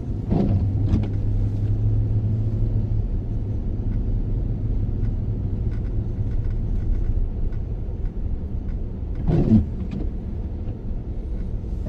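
A car being driven, heard from inside the cabin: a steady low road and engine rumble, with a low engine hum for the first three seconds as it pulls out of a left turn. A short, higher-pitched sound cuts in about nine and a half seconds in.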